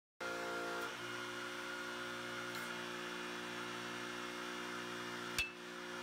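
Hydraulic pump powering a guillotine pipe-crimping tool, running with a steady hum whose note shifts about a second in. A single sharp snap with a brief ring comes near the end.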